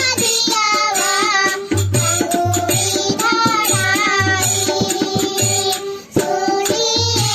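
Two young girls singing a Bhojpuri Mahadev mangalik folk song in unison, accompanied by a harmonium and a repeating low drum beat.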